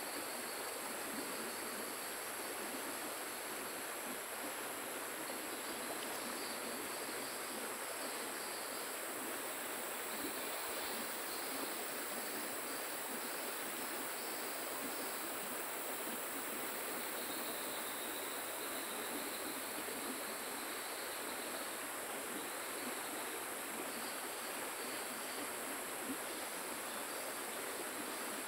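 Running river water, a steady even hiss, with a continuous high-pitched insect drone over it.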